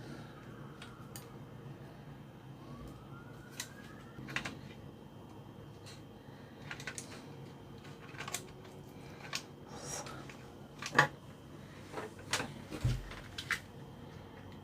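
Scattered light clicks and taps of small tools and parts being handled on a workbench, the loudest about eleven seconds in, over a steady low hum. A faint tone that rises and then falls comes about three seconds in.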